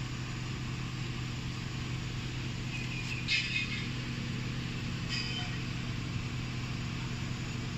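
A steady engine hum, like a vehicle idling. Two short high-pitched chirps are heard, about three and five seconds in.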